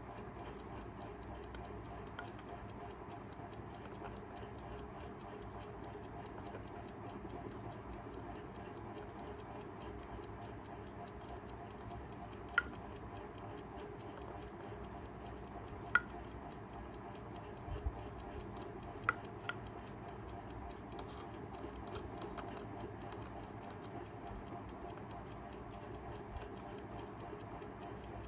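Kaiser 4 Rubis four-jewel travel alarm clock movement ticking at a fast, even beat: the balance running. A few louder sharp clicks come through around the middle.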